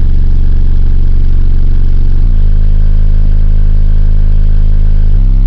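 Car stereo subwoofers playing very loud sustained bass notes, the pitch stepping to a new note about two seconds in and again near the end. The sound is so loud that it is heavily distorted and buzzy.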